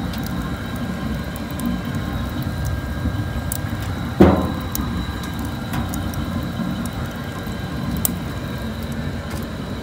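Wood fire burning in a wood-fired oven: a steady low rush with sharp crackles and pops throughout, and one loud knock about four seconds in.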